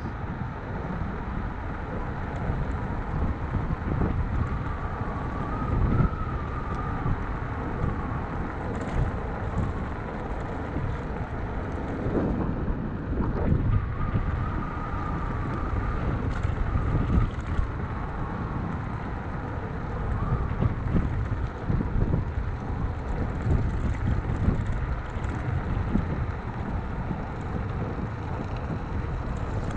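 Wind buffeting the microphone and road rumble from an electric scooter riding at speed, with a faint wavering high whine that comes and goes.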